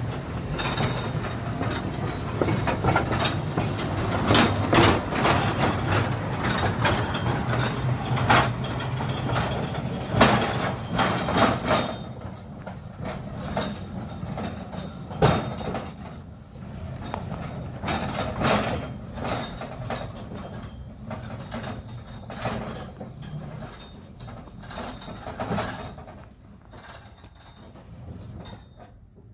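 Battery-electric narrow-gauge field railway locomotive running on track: a low steady hum with many irregular clicks and knocks, fading away over the second half.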